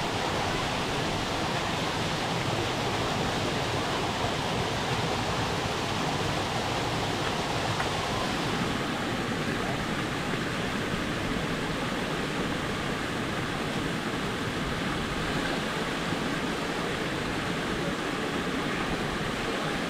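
Waterfall rushing in a steady, even roar of falling water, the high hiss easing a little about halfway through.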